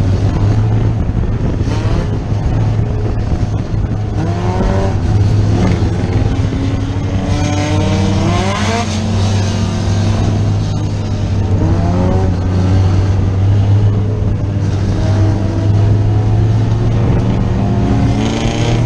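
Dirt-track race car engine heard from inside its open cockpit: a steady, loud low drone, with the revs climbing several times as the car accelerates, most plainly about eight seconds in and again near the end.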